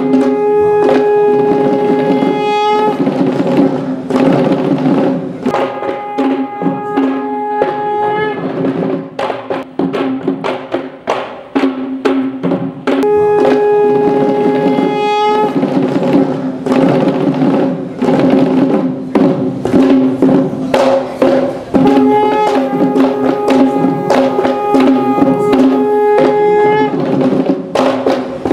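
Traditional Sri Lankan ceremonial music: fast, continuous drumming under a wind instrument that holds long, steady notes in phrases of a few seconds. There are stretches of drums alone between the phrases.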